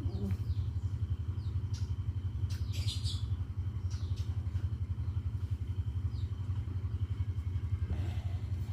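A steady low hum from a running motor, pulsing quickly and evenly, with a few faint clicks and squeaks a few seconds in.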